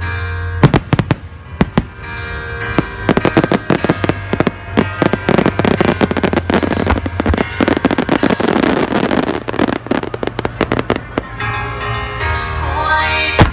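Fireworks going off over music: a few loud bangs in the first second or two, then a dense run of rapid reports and crackling for about eight seconds, thinning out near the end while the music plays on.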